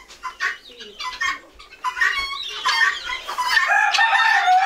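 Barn chickens clucking, many short overlapping calls repeated over and over, busiest in the second half, with one longer drawn-out call from about three and a half seconds in.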